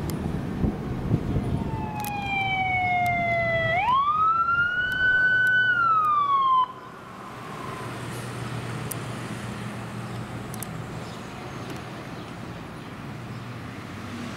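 Fire engine siren wailing. The tone sinks, then sweeps up quickly about four seconds in, holds high and starts to fall before cutting off abruptly. Around it, the heavy truck's engine and road noise run as a low rumble and then a steady hum.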